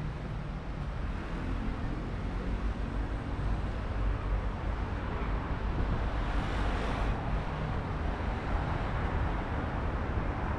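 Outdoor ambience: a steady low rumble with a hiss that swells briefly about six seconds in.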